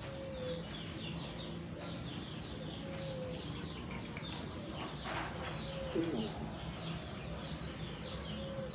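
Birds calling: a steady run of short, high, falling chirps about three a second, with short low coos every few seconds, like a dove's.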